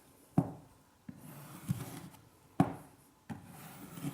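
Scraping strokes across a wood floor, working off varnish softened by chemical stripper. Each stroke rasps for about a second and alternates with a sharp knock, about every two seconds.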